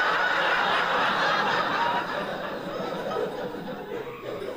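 A club audience laughing loudly together, the laughter easing off about halfway through.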